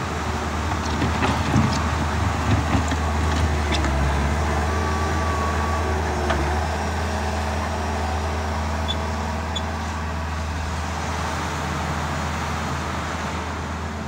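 Bobcat S450 skid steer loader's diesel engine working under load as its bucket is pushed into a soil pile, with knocks and clatter from the bucket in the first few seconds, then running steadily as it moves off with a full bucket.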